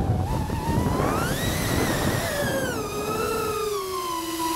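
FPV quadcopter's motors and propellers whining. The pitch starts low, rises about a second in as the throttle comes up, then falls gradually toward the end, over a low rushing of air.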